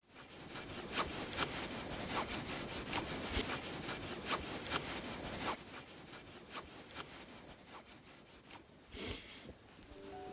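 Cloth flag flapping and snapping in gusty wind, with wind rushing on the microphone. The gusts are strongest for the first five seconds or so, then ease, with one short gust near the end.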